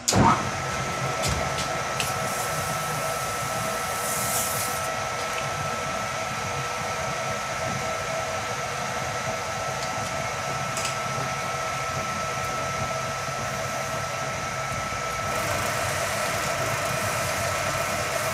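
Metal lathe running steadily, spinning its magnetic chuck for polishing the freshly lapped face, with a constant high whine over a steady rushing hum.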